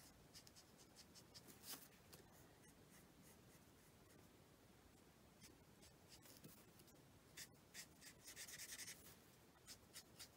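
Faint scratching of a Stampin' Blends alcohol marker's tip colouring on cardstock: short strokes that come and go, with a quick run of strokes about eight to nine seconds in.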